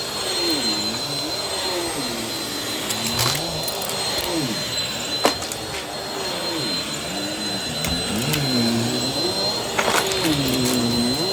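Vacuum cleaner running, pushed quickly back and forth over the floor. The motor's pitch dips and rises about once a second over a steady rush of air and a thin high whine, with a few sharp knocks.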